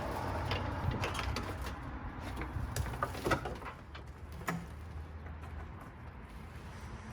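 Scattered light clicks and taps of plastic headlight parts being handled and fitted into a headlight housing, the loudest about three and four and a half seconds in, over a steady low hum.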